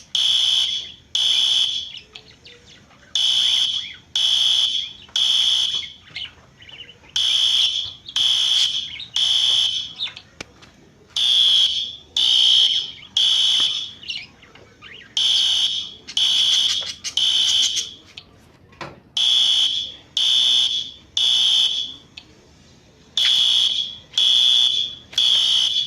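Piezo fire alarm sounding the temporal-three evacuation pattern: three high-pitched beeps, then a pause, repeating about every four seconds.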